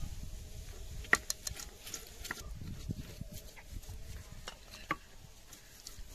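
A man eating by hand: chewing with wet lip smacks and mouth clicks, the sharpest about a second in.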